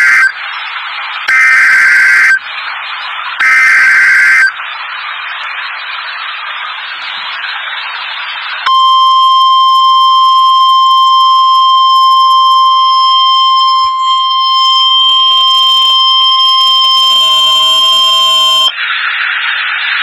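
NOAA Weather Radio SAME alert header: three bursts of screeching digital data tones about a second long and a second apart, with radio hiss between them. About nine seconds in, the steady weather-radio warning alarm tone sounds for about ten seconds, then drops back to hiss. This sequence signals that a warning broadcast follows.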